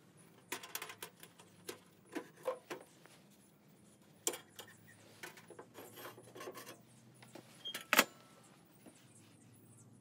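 Steel top plates of a sheet-metal camping stove being slid back and lifted off: scattered metal scrapes and clinks, with one sharp clank about eight seconds in.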